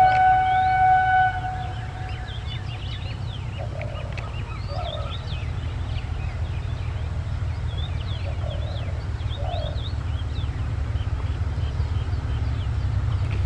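Horn of a ZDM-4A narrow-gauge diesel locomotive sounding a steady multi-tone blast that cuts off about a second in, followed by the locomotive's diesel engine running with a steady low rumble that grows slowly louder as it approaches. Birds chirp throughout, with a few louder short calls in pairs.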